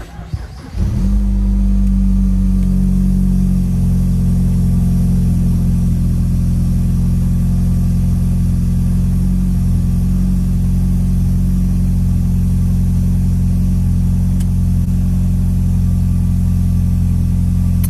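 Mini Countryman S's turbocharged four-cylinder cold-starting through a catless downpipe: it catches about a second in and settles into a steady high cold idle, the note shifting slightly a few seconds later. A rattle comes with this start, which the owner takes for cold-start noise.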